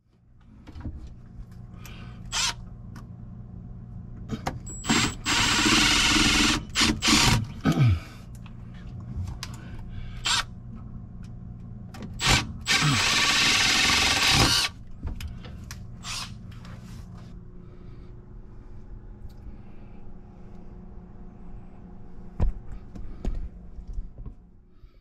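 A power drill runs in two bursts of about two seconds each, its motor winding down in a falling whine after each burst. Sharp clicks and knocks of handling come between the bursts, over a steady low hum.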